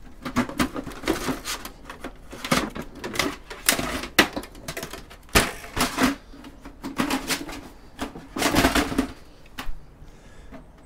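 Clattering, clicking and scraping of an old desktop PC's metal case being opened and handled by hand, in irregular bursts.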